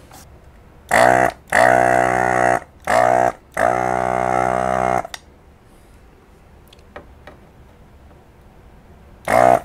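Hakko handheld desoldering gun's built-in vacuum pump buzzing in four short bursts over about four seconds, the longest over a second, with one more short burst near the end, as the trigger is pulled to suck molten solder out of circuit-board joints.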